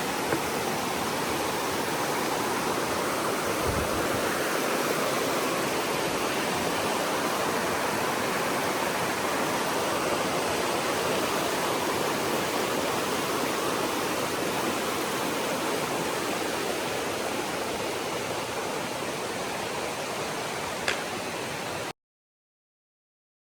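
Steady rush of flowing water, like a waterfall or fast stream, that cuts off suddenly near the end.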